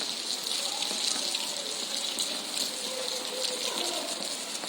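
Steady hiss of water, even in level throughout, with a bright high band and faint wavering sounds beneath it.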